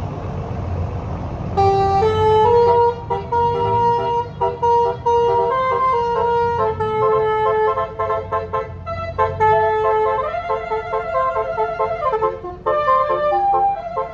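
Bus telolet basuri multi-tone horn playing a melody of held and stepping notes, starting about a second and a half in, over the low rumble of the bus engine.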